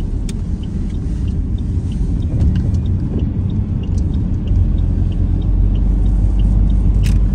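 Road noise heard from inside a moving car: a steady low rumble of tyres and engine, with faint scattered light ticks.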